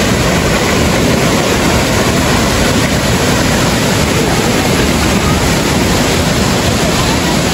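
Loud, steady rush of falling and flowing water from a waterfall.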